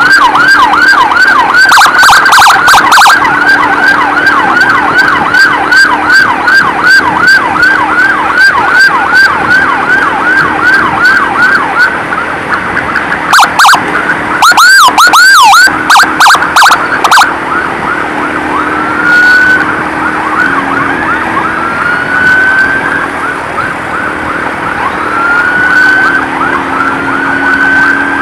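Emergency vehicle siren in a fast yelp: falling sweeps about three a second for roughly twelve seconds. Then comes a cluster of loud short blasts, and after that slow rising wails every few seconds.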